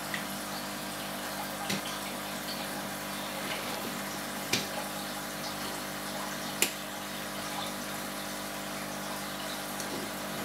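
Aquarium pump running with water moving in the tank: a steady watery hiss over a low, even hum, broken by three short sharp clicks.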